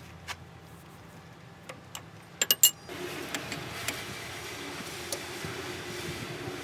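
A few light ticks over a quiet low hum, then three sharp clicks in quick succession about two and a half seconds in. A louder steady hum with a faint held tone and occasional ticks follows.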